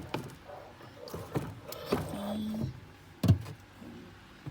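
Items knocking and clunking as they are moved about on refrigerator shelves: a handful of sharp knocks, the loudest a little over three seconds in.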